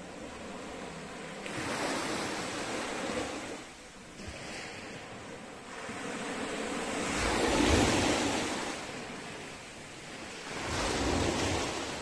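Sea surf: waves breaking and washing up the shore in three surges, about two seconds in, the loudest one about seven to eight seconds in, and another near the end.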